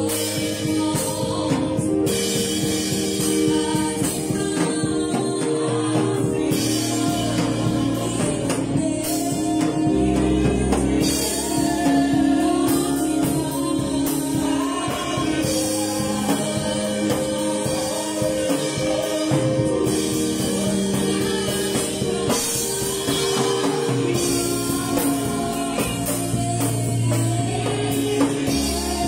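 Live gospel worship music: a woman sings lead while playing a Yamaha electronic keyboard, backed by a drum kit with cymbals played with sticks.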